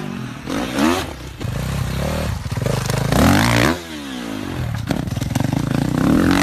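Dirt bike engines revving hard, the pitch climbing and dropping in repeated sweeps as the bikes hit a steep ramp and jump. About five seconds in there is a quick burst of clattering knocks.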